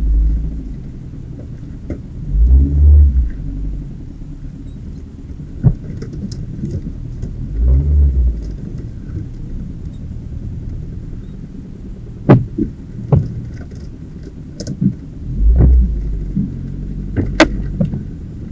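A car running with a low rumble that swells four times, and several sharp clicks.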